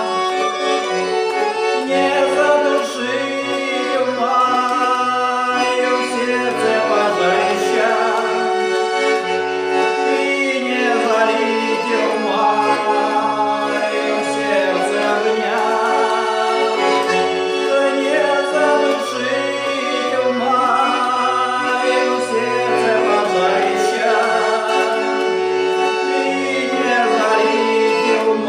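A song: an accordion playing held chords and melody under a singing voice.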